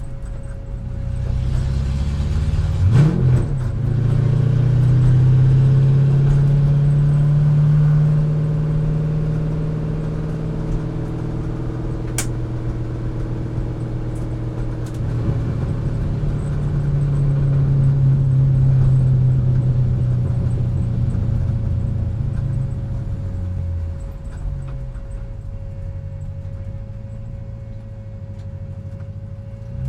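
Chevrolet C5 Corvette's V8 running at fairly low, moderate revs, its speed rising and easing off slowly twice, with a quick rev change about three seconds in. A steady faint whine runs underneath.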